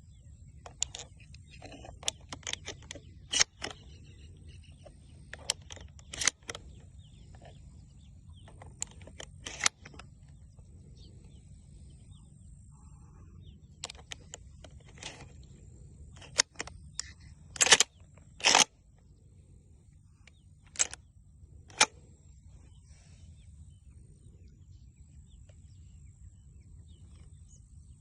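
A series of sharp, irregular clicks and taps, about twenty over twenty-two seconds, with the loudest two close together past the middle. A steady high hiss and a low rumble run underneath.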